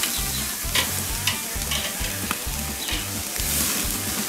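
Marinated pork belly slices sizzling on a charcoal grill grate, fat dripping into the coals and flaring, with several sharp clicks of steel tongs against the meat and grate as the slices are moved.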